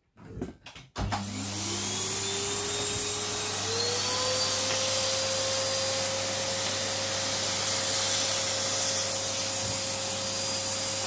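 A small car-cleaning vacuum cleaner with a long hose switched on after a few clicks about a second in. Its motor whine rises as it spins up, steps up again a few seconds later, then runs steadily with a rush of sucked air. The pitch starts to fall right at the end.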